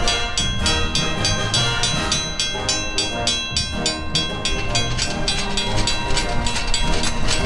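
Background music with a fast, steady beat and held notes.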